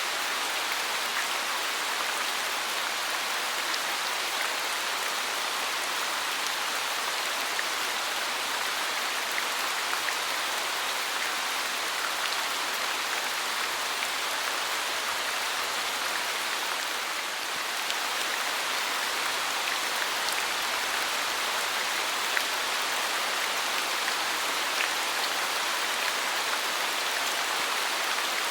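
Steady rain falling, an even hiss with faint scattered drop ticks, easing slightly for a moment about two thirds of the way through.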